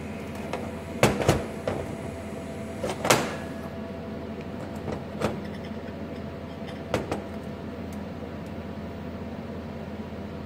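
Steel hinge parts knocking and clinking against each other and on a steel welding bench as the tabs are set in place by hand. The two loudest knocks come about a second in and another near three seconds, with lighter ones later, all over a steady machine hum.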